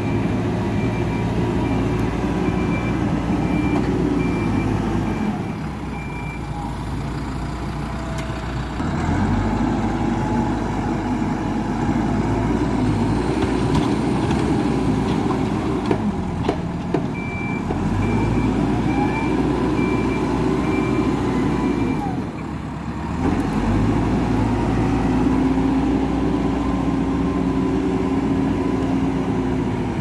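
Hidromek 102B backhoe loader's diesel engine working hard, rising and dropping back several times as it scoops and loads soil. Its reversing alarm beeps steadily at the start and again for a few seconds just past the middle.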